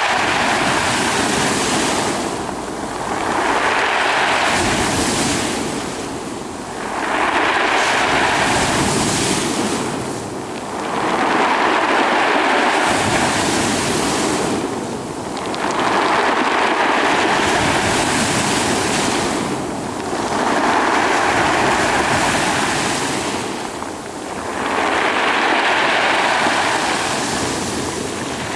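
Sea waves washing in and drawing back, a rushing hiss that swells and fades about every four seconds.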